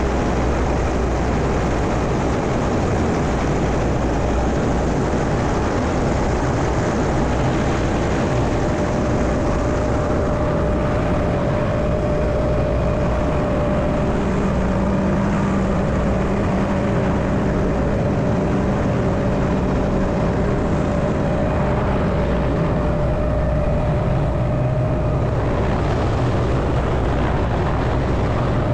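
Helicopter engine and main rotor running steadily, heard from inside the cabin with the doors open, with a steady whine over a low hum.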